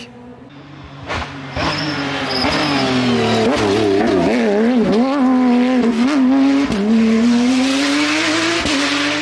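Porsche 911 rally car's flat-six engine coming into a hairpin and powering out of it. The engine note falls on the approach, wavers through the turn, dips at two upshifts and climbs hard as the car accelerates away, with a brief high tyre squeal about two seconds in.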